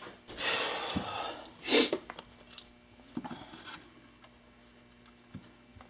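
Handling noise as a motorcycle backrest and its mounting plate are picked up and laid on a plastic rear fender: a rustle, a short louder scrape about two seconds in, then a few faint clicks.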